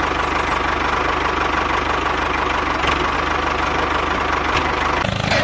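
Tractor engine running steadily at idle with a fast, even chug.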